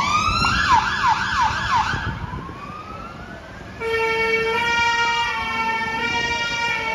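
Fire engine's siren sounding as the appliance moves off. It opens with a rising whoop and a quick run of falling yelps, then a slow rising wail. From about four seconds in comes a steady, slightly shifting tone with a slow rise-and-fall wail under it.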